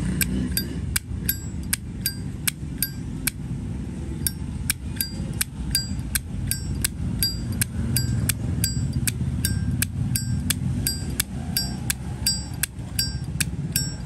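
A satin-finish Zippo lighter's lid flicked open and snapped shut over and over, about two to three sharp clicks a second, each with a short metallic ring. It is a Zippo whose lid click the seller has tuned.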